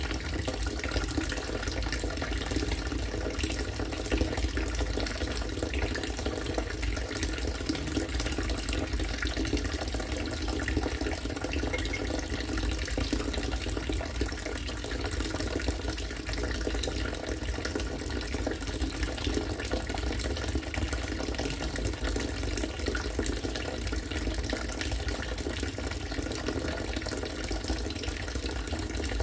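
Rainwater from a rain-harvesting system falling steadily into collected water, a continuous pouring splash.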